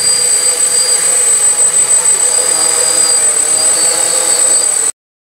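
DJI F450 quadcopter's four motors and propellers hovering close by: a steady high-pitched whine over a buzz. It cuts off suddenly near the end.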